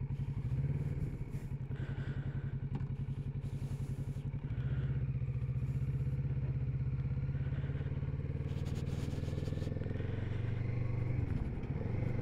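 Kawasaki Z650RS parallel-twin engine idling with an even pulse. From about four seconds in it runs steadier and a little louder as the bike gets under way.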